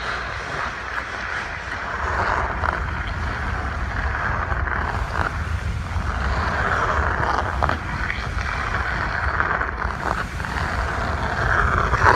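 Hockey skate blades scraping and carving on rink ice, with a low wind rumble on the microphone and a few sharp clicks of stick on puck.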